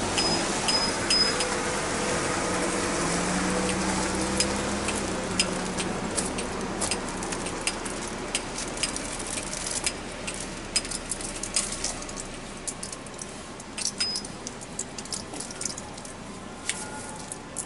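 Irregular light metallic clicks and rattles over a steady background rumble, with a motor vehicle's engine running in the first few seconds and then fading out.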